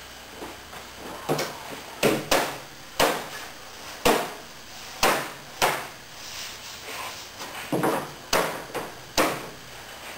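A block of wood knocking against thin plywood hull panels about a dozen times, in irregular sharp knocks, to force the wired panels down flat along the keel seam.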